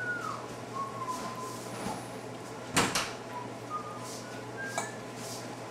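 A person whistling scattered notes over a low steady hum: a note gliding down at the start, a short held note, then a few brief high notes later on. A single sharp clack about halfway through is the loudest sound.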